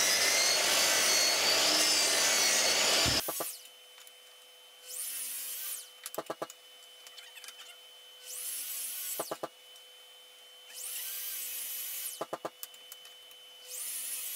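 Sliding mitre saw spinning up and cross-cutting sycamore strips. A long run of the saw cuts off suddenly about three seconds in. Four shorter bursts of the motor rising to speed follow, each followed by a quick rattle of clicks as the cut piece is handled on the saw table.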